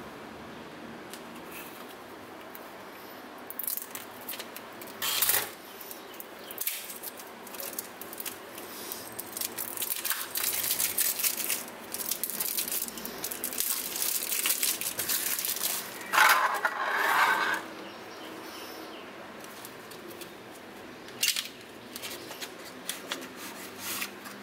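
Cellophane wrapping crinkling and tearing as it is peeled off a playing-card tuck box, densest in the middle, with a longer, louder tear about two-thirds of the way through. A few sharp clicks and taps of the card box and its plastic case come in between.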